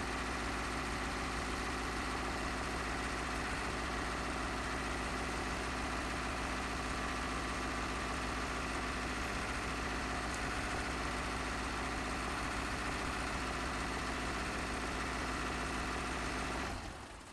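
An engine idling steadily at an even pitch, cutting off abruptly near the end.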